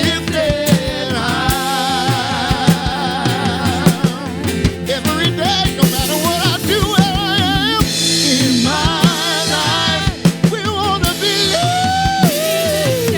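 Contemporary worship band playing a song with a drum kit, a singer's voice wavering over it.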